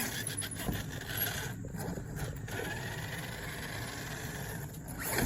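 Electric RC truck running on concrete: its motor whines and tyres rumble, with a few short rattles and clicks early on.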